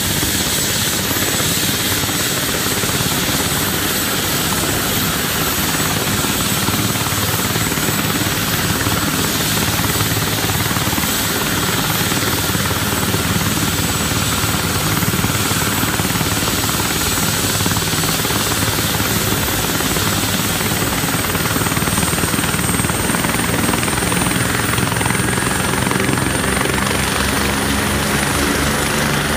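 MBB/Kawasaki BK 117 twin-turbine helicopter running on the ground with its rotors turning: a steady high turbine whine over the rotor noise. The whine rises slightly in pitch over the last several seconds, and a regular low rotor beat comes in near the end.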